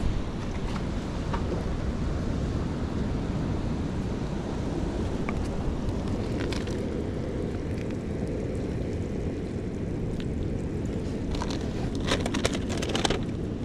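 Wind buffeting the microphone over the steady rush of surf. Near the end, a short run of crackles as a plastic bag is handled.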